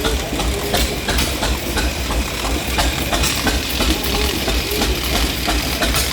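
An engine running at idle with a steady low rumble, over a busy haze of outdoor background noise.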